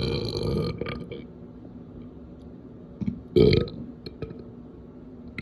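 A person burping: a long burp carries on from before and ends about a second in. A shorter, louder burp comes about three and a half seconds in.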